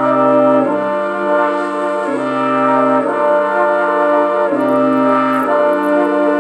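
Background music of held chords that change every second or two, with a low bass note dropping in and out.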